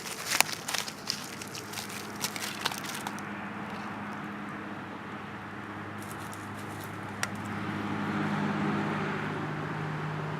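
Footsteps crunching through dry leaves and twigs for the first few seconds, then a steady low mechanical hum that grows louder about eight seconds in.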